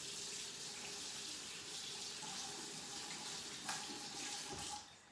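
Kitchen faucet running into the sink in a steady hiss, shut off shortly before the end.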